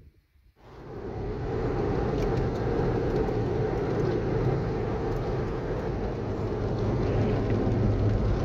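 Steady road and engine noise heard from inside a moving car: a low drone with tyre rumble, starting abruptly about half a second in.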